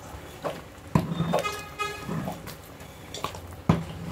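A metal ladle knocks twice against the rim of a large aluminium cooking pot while thick khichda is stirred: once about a second in and once near the end. Between the knocks comes a short horn-like toot.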